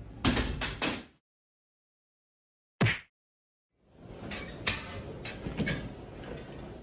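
A tension pull-up bar wedged in a doorway gives way under a man doing pull-ups and he crashes down: four loud bangs and clatter in quick succession. After a pause, a few seconds of lighter clanks over a rumbling noise.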